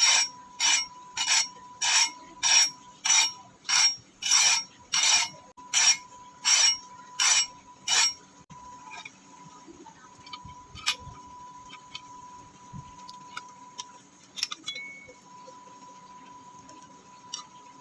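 Hand file rasping across the steel blade of a rusty cleaver held in a vise, filing off rust in even push strokes, about three every two seconds. The filing stops about eight seconds in, leaving only a few faint clicks and taps of handling, over a faint steady high whine.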